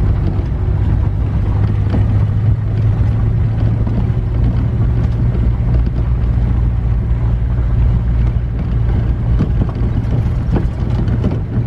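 Vehicle cruising at a steady speed, heard from aboard: a constant low engine drone with road and wind noise.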